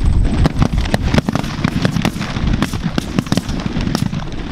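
A rapid string of sharp shotgun cracks, several a second and overlapping, from a group of hunters firing at a flock of Canada geese.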